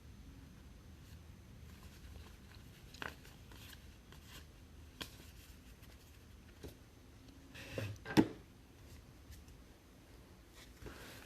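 Trading cards being handled at close range: soft rustling and a few light clicks, with a brief louder rustle and a sharp tap about eight seconds in.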